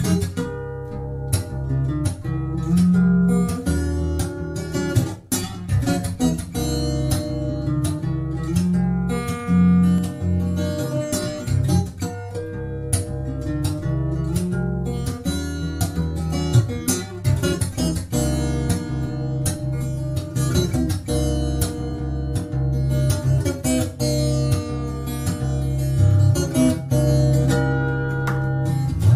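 Yamaha FS800 steel-string acoustic guitar played fingerstyle: a picked melody over a steady, alternating bass line.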